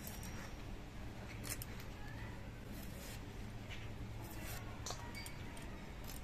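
Bottle-gourd shoots being cut and stripped on a boti blade: faint, scattered snaps and clicks of the stems as they are cut and their fibrous strings pulled off, over a low steady hum.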